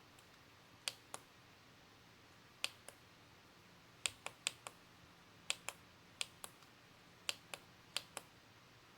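Sharp small clicks in pairs, a louder click followed about a quarter second later by a softer one, repeated eight times at uneven intervals.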